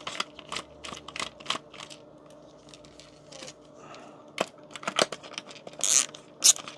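Screwdriver backing screws out of a plastic radio housing: a run of small clicks and scrapes, with a few sharper taps in the second half.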